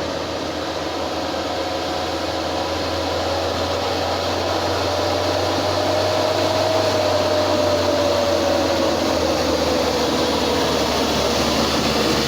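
Tour bus engine working hard up a steep climb: a steady drone with a whine that rises slowly and then falls away, getting louder toward the end.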